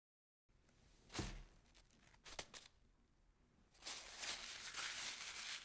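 Kitchen knife slicing through a block of tempeh, faint. A knock about a second in and a couple of quick clicks, then a steady scraping hiss for the last couple of seconds as the blade saws through.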